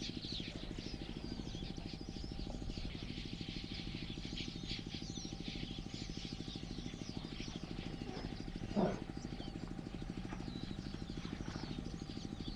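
Small birds chirping and twittering over a steady low hum, with one short, louder animal call about nine seconds in.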